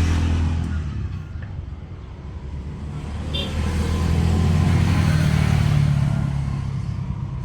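A nearby motor vehicle engine running, fading about a second in and then swelling louder again.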